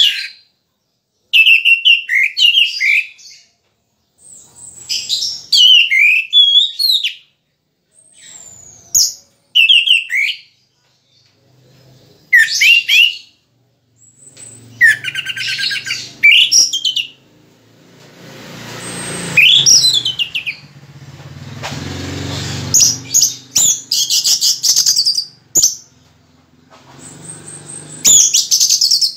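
Orange-headed thrush singing in repeated bursts of a second or two, quick rising and falling whistles mixed with rapid chattering, with short pauses between phrases; the bird is still in moult yet singing freely. About two thirds of the way through, a low rumble swells and fades beneath the song for about five seconds.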